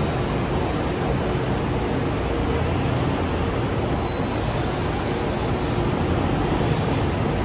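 City bus driving past at close range, its engine running under steady road noise. Two short bursts of high hiss come about four and a half and six and a half seconds in.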